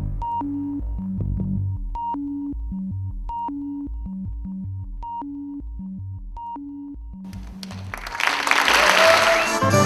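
Slow electronic music: a repeating figure of synthesizer notes over low pulses, which thins out and fades a little. About seven and a half seconds in, a loud rush of noise swells up.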